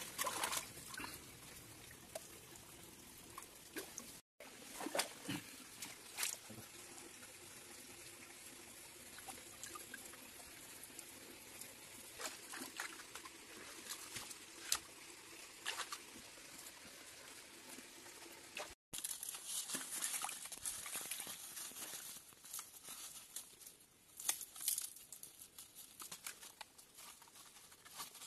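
Shallow stream water trickling over rocks, with scattered splashes, patters and scrapes from hands and feet working in the water and mud.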